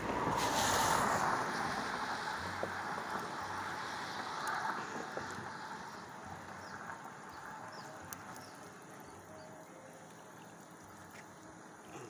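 Water rushing and hissing out of a leaking black plastic water pipe, loudest near the start and growing quieter over the following seconds, with a few small handling clicks.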